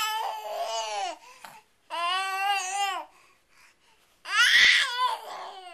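Young infant cooing and babbling in three drawn-out, high-pitched vocal sounds separated by short pauses, the last one the loudest.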